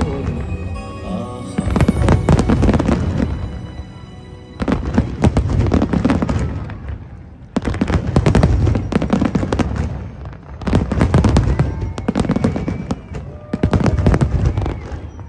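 Fireworks display: shells bursting with deep booms and dense crackling, in about five volleys a couple of seconds apart, with show music underneath.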